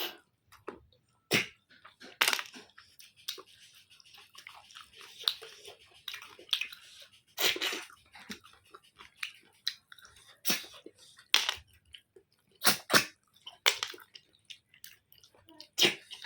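Close-up eating of cooked snails: wet chewing, with irregular sharp clicks every second or so.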